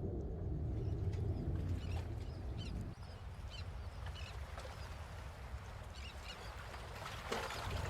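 Birds chirping: short high calls repeated every second or so, over a low steady rumble that drops away about three seconds in.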